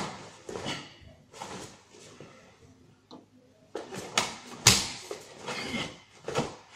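Swishes and snaps of a karate gi and the slaps of bare feet on the dojo mats as a kata is performed, about eight quick, sharp bursts, the loudest a little over halfway through.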